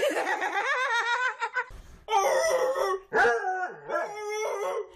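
An animal howling: three long wavering cries, the first rising in pitch.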